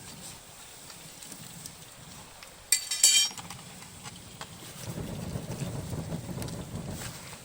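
Wood bonfire burning and crackling, with scattered small pops, one loud sharp snap about three seconds in, and a louder rushing stretch for a couple of seconds near the end.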